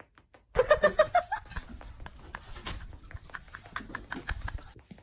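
An animal calls once, a short wavering cry about half a second in, followed by rustling and low knocks.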